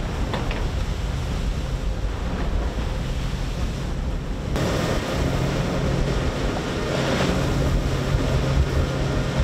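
Center-console boat running at speed: outboard engines humming under the rush of water off the hull and wake, with wind buffeting the microphone. The sound gets louder and brighter about halfway through, as the view moves toward the stern and the engines.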